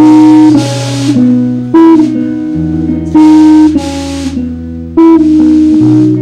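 Live rock band starting a song with two electric guitars, bass guitar and drum kit playing an instrumental intro: held chords punctuated by drum-and-cymbal accents every second or so. Very loud, peaking out the recording on the hardest hits.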